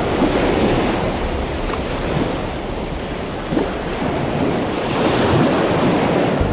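Rough sea: waves breaking and churning, with wind blowing over the water.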